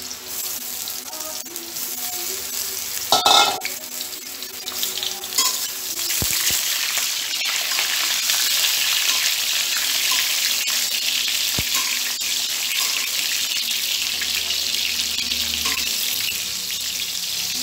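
Boiled whole potatoes sizzling as they fry in hot oil in a metal kadai, the sizzle growing louder about five seconds in. A metal spatula turns them with occasional clinks and scrapes against the pan, one louder about three seconds in.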